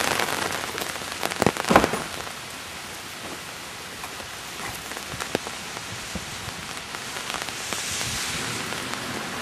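Rain falling on an umbrella held over the microphone: a steady hiss of drops, with a few sharp, louder taps about a second and a half in.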